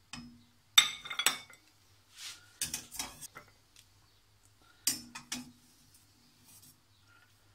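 Stainless steel slotted skimmer clinking against a ceramic plate as freshly boiled almonds are tipped off it onto the plate. The sharp clinks come in three groups about two seconds apart.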